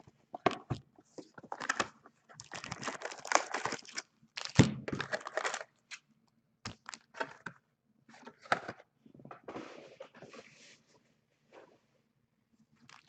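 Trading-card packs being torn open and their wrappers crinkled by hand, in irregular bursts with short pauses. The handling is busiest in the first half and thins out later, with a quiet spell near the end.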